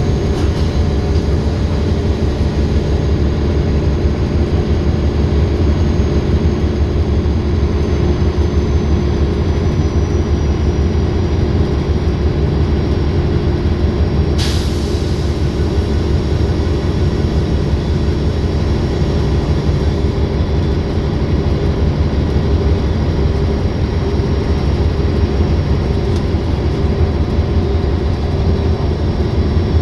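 Olympian double-decker bus running steadily under way, its diesel engine with a high turbo whine that slides down slightly in pitch a few seconds in. A single sharp click comes about halfway through.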